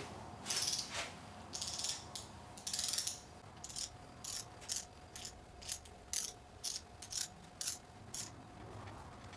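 Ratchet head of a torque wrench clicking as it is swung back and forth, running down a lower intake manifold bolt on a supercharged 3800 V6. First three quick rasping runs of clicks, then a string of single clicks about half a second apart.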